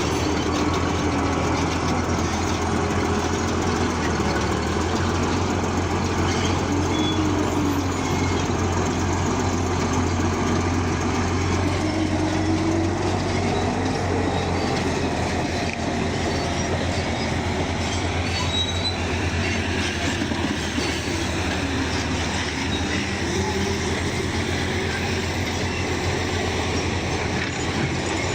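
Bulldozer at work: a steady, loud diesel engine drone whose pitch slowly rises and falls as the load changes, over a constant low hum of the machine.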